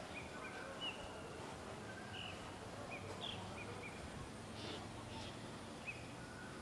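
Birds chirping, a scattered series of short high chirps, over a faint, steady outdoor background.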